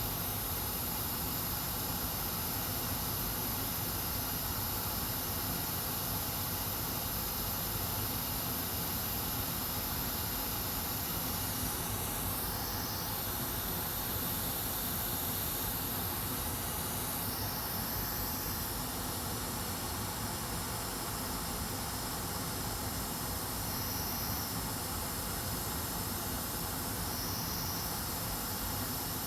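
Hot air rework gun blowing a steady hiss of 500 °C air onto a laptop motherboard chip. The chip has fused to the board's layers and will not come off.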